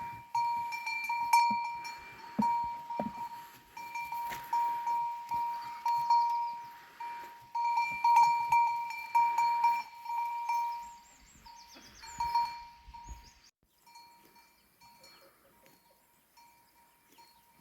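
A metal livestock bell on a grazing animal, clanking irregularly as the animal moves, with several strikes a second at times. The ringing grows fainter and sparser about thirteen seconds in. A few bird chirps can be heard.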